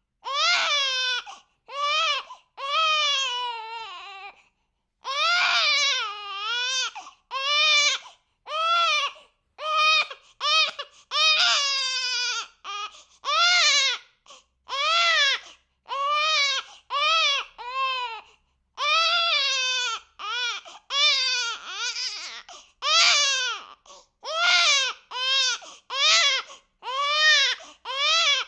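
A six-week-old baby crying in short repeated wails, about one a second, each rising then falling in pitch, with brief gaps for breath between them.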